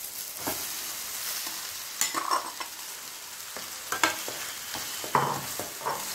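Onion-tomato masala sizzling in a metal kadai as minced soya chunks are tipped in and stirred with a metal spatula, which scrapes and knocks against the pan several times over a steady frying hiss.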